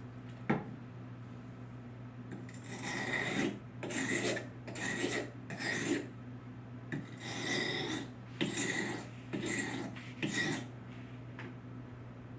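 Steel kitchen knife blade being stroked across the coarse side of a sharpening stone: about eight rasping strokes with a faint ring from the blade, after a single sharp tap about half a second in. The knife is being rough-sharpened at a raised angle to work the edge.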